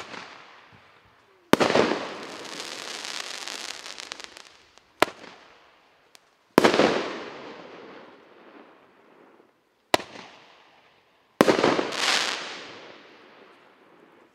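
A 1.2-inch eight-shot Roman candle (Russian Fireworks 'Magnolia') firing: six sharp shots at uneven gaps of about one and a half to three and a half seconds, each followed by a fading rush of noise. A burst of dense crackling follows the second shot.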